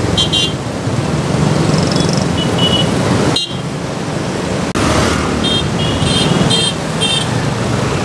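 Busy street traffic with motorcycle and scooter engines running, and short high-pitched horn beeps, several in quick succession in the second half.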